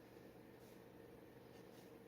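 Near silence, with two faint short scratches of a steel G nib dip pen drawing on paper, about half a second in and again near the end.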